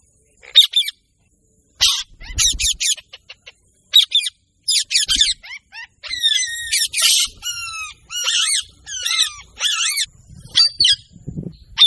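Birds calling: a fast series of harsh chirps and squawks, in short bursts at first and then almost without pause through the second half.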